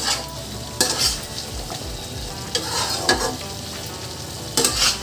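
Chicken masala being stirred in a kadai: a spatula scrapes through the pan about four times over a steady sizzle of frying. The tomatoes, ginger-garlic paste and ground spices are cooking down in it.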